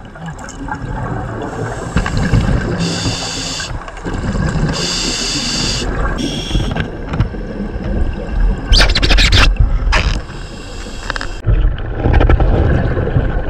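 Scuba diver breathing underwater through a regulator: short hissing inhalations every couple of seconds over the low rumble of exhaled bubbles.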